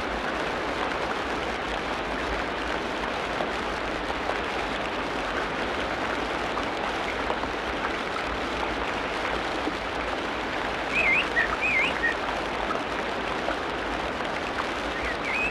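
Steady rain in a tropical rainforest. About two-thirds of the way through, a bird gives a few short whistled notes.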